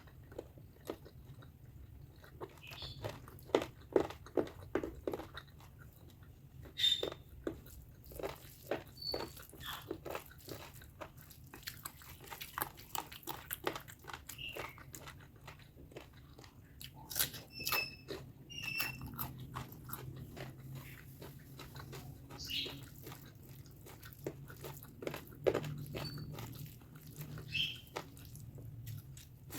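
Close-miked chewing and biting of pork fat curry with rice: irregular wet mouth clicks and crunches, denser in some stretches than others, with a few brief high squeaks in between.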